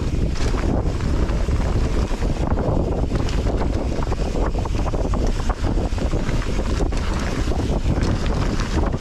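Wind buffeting the microphone of a mountain bike's camera as it rides fast down a dirt trail, with a steady low rumble from the tyres on the ground and quick, irregular rattles and knocks from the bike.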